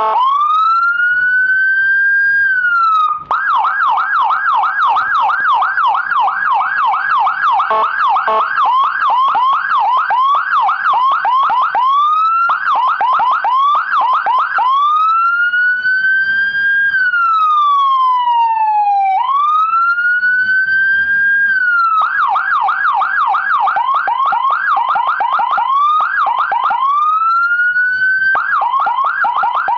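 Whelen EPL-type electronic siren module driving a 200-watt slim siren speaker, cycling through its tone patterns: a rising wail, a fast yelp of about three sweeps a second, slower rising sweeps, and about halfway through one long tone that falls in pitch before the wail climbs again. It then switches back and forth between fast yelp and slower sweeps.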